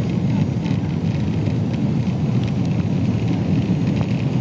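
Steady low rumble of a Boeing 777-200's engines and airflow, heard from inside the passenger cabin during landing.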